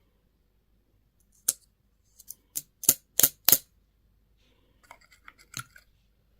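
Plastic candy or toy packaging being handled and opened: a series of sharp, crisp snaps and clicks, with about six loud ones in quick succession, then quieter small crackles.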